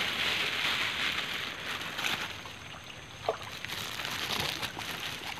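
Water sloshing and splashing in a small fish pond as fish feed at the surface. The splashing eases off over the first few seconds, and there is one short chirp about three seconds in.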